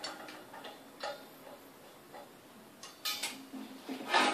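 Brass argon regulator being screwed by hand onto a gas cylinder's valve: small metallic clicks and taps of the fitting and handling, with a louder knock about three seconds in and another at the end.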